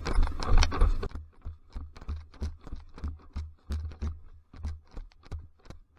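Running footsteps crunching on the ground, about three or four steps a second, each with a dull thump beneath; the first second is a denser rustle.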